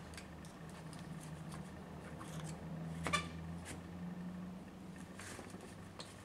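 Light clicks and knocks of metal and plastic parts as the tool holder of a Bosch GBH 5-40DCE rotary hammer is worked by hand during disassembly, with one sharper click about three seconds in. A low hum runs underneath.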